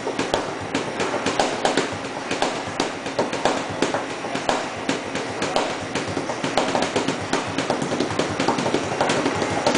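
Hands drumming fast on a countertop: a quick, dense stream of rhythmic taps and slaps from fingers and palms.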